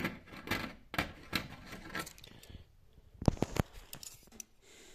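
Hands handling a tractor engine piston ring and its plastic wrapping: a string of light rustles and clicks, with a few sharper knocks just after three seconds in.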